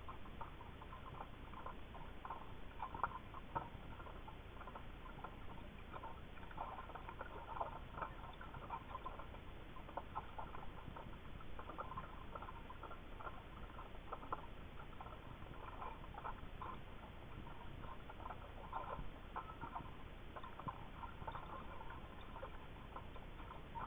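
Underwater ambience picked up by an underwater camera's microphone in freshwater: a faint steady hiss with irregular soft clicks and crackles.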